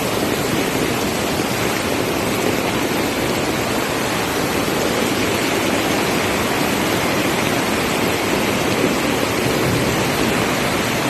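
Floodwater rushing past: a steady, loud wash of moving water with no break or change.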